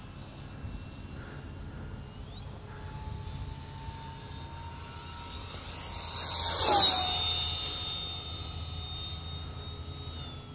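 Radio-controlled F-16 model jet flying, its high-pitched whine stepping up in pitch about two and a half seconds in as the throttle is advanced. About six to seven seconds in it makes a close, fast pass, loudest there, with the pitch dropping as it goes by.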